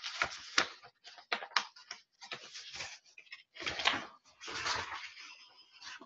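Paper rustling and handling noise, with a few sharp clicks in the first two seconds and irregular rustling patches after that.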